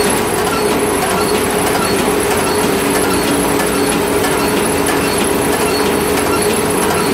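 Small round baler's forced-feed pickup and steel bale-chamber rollers running, a loud steady mechanical drone with a constant hum and a fine rattle of tines and chains.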